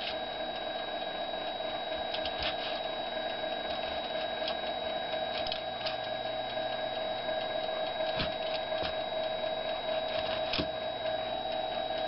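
A knife slitting vents in the tops of frozen pot pie crusts, heard as a few faint scattered scratchy clicks over a steady electrical hum.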